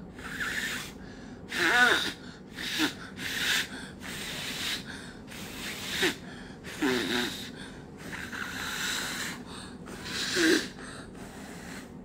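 A child huffing warm breath into her cupped hands, about ten breathy puffs, a few with a little voice in them, the loudest about two seconds in. She is warming a colour-changing toy held inside her hands.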